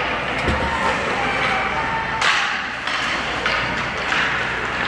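Ice hockey play on an indoor rink: skate blades scraping the ice and sticks clacking on the puck, echoing in the arena, with voices in the background. One sharper hit comes a little over two seconds in.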